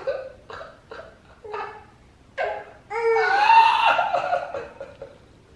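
A baby's laughing squeals: a few short high bursts, then a longer, louder squeal about three seconds in that falls in pitch.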